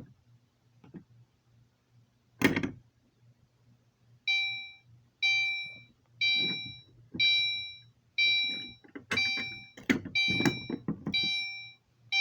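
A sharp clack, then a fire alarm notification appliance sounding in chime mode: a ringing ding about once a second, each one striking sharply and fading, starting about four seconds in. Low knocks and handling noise overlap the dings near the end.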